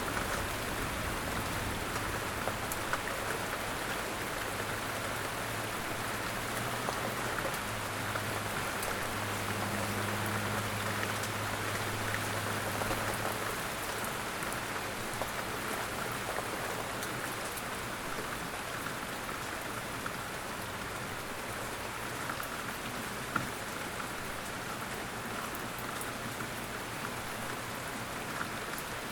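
Steady rain falling, with scattered drop ticks, and a faint low hum underneath in the first half.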